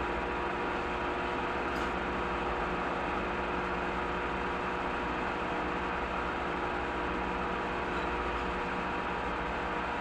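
Steady machine hum over an even noise, with a faint tick about two seconds in.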